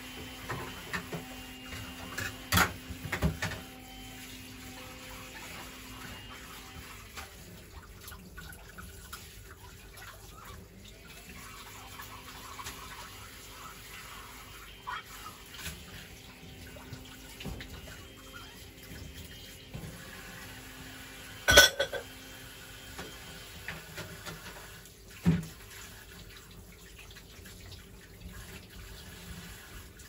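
Tap water running into a stainless-steel kitchen sink while dishes are washed by hand, with scattered clinks and knocks of crockery. The loudest is a sharp clatter about two-thirds of the way through.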